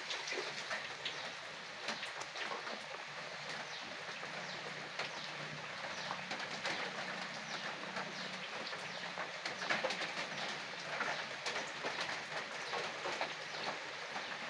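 Mustard gravy for tengra fish boiling in a kadai as the fried fish go in: a dense, steady crackle of small bubbling pops. Heavy rain hisses in the background.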